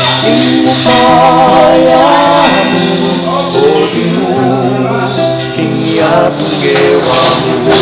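Background music: a sung song with instrumental accompaniment, the voice wavering with vibrato over sustained bass notes.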